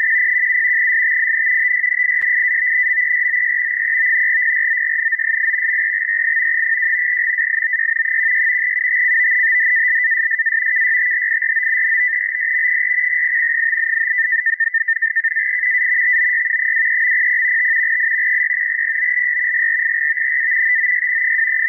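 NAVTEX radio-teletype signal on 4209.5 kHz from a shortwave receiver: a continuous, fast-warbling two-tone data sound, the SITOR-B frequency-shift keying that carries navigational and weather warnings. It dips in level briefly about two-thirds of the way through.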